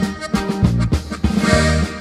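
Norteño corrido instrumental intro: an accordion melody over a steady rhythm of bass notes and strummed guitar chords.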